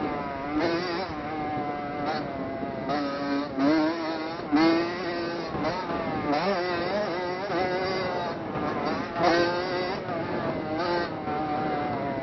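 Dirt bike engine heard from on board while riding, its pitch rising and falling again and again as the throttle is opened and shut through the track's bumps and turns, with short rushes of noise in between.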